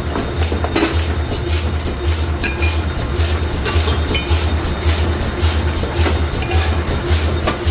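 Forging machinery running with a low rhythmic pulse about twice a second, over scattered metallic clinks and knocks of metal being worked.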